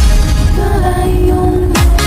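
Electronic dance music: a kick drum at the start, then the beat drops out for about a second and a half under one held synth note, and the kick drum and hi-hats come back near the end.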